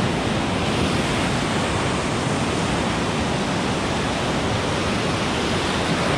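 Ocean surf breaking and churning into white water close by, a steady rushing wash.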